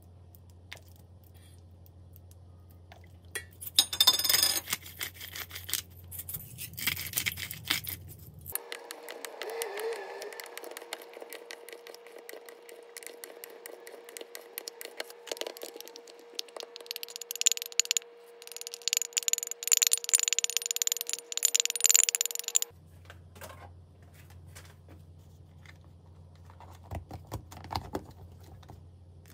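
A wooden spoon stirring and scraping a cherry tomato marinade in a stainless steel bowl, with repeated clinks and scrapes against the metal, loudest in the second half. Near the end, a few sharp clicks from a plastic food container being closed.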